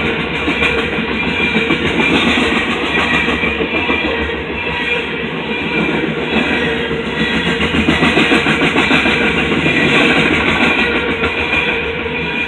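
Loaded coal train cars rolling past on the rails, with guitar music playing at the same time.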